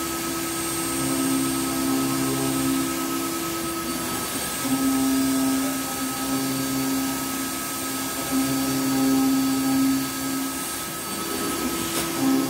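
Five-axis CNC router machining a wooden workpiece on a rotary axis, its spindle running with a steady whine. A lower tone drops out and returns every few seconds as the cut changes.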